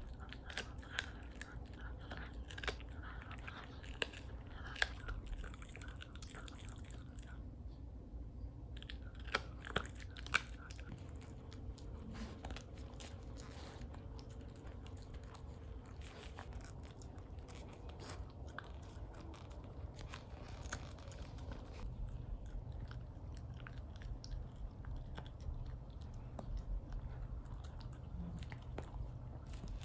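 Norwich terrier chewing a bully stick, a dried beef chew: wet gnawing with many sharp crunching clicks, busiest in the first ten seconds and sparser after.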